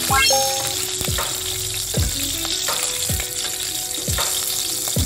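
Dried red and green chillies sizzling in hot oil in a steel kadai as a spatula stirs them. Background music with a low drum beat about once a second plays along.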